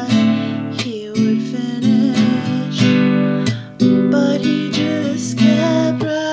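Acoustic guitar strummed in a slow ballad rhythm, with a woman's voice singing along, broken by a short pause a little before four seconds in.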